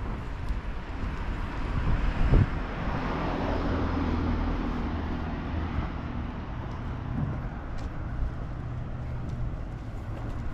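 A motor vehicle driving past, its engine and tyre noise swelling to a peak about three to four seconds in and then slowly fading. There is a sharp thump just before the peak.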